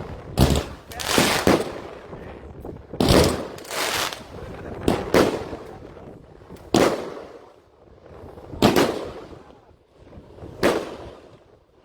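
Fireworks going off: around ten sharp bangs at irregular intervals, each trailing off briefly, the loudest a little past the middle.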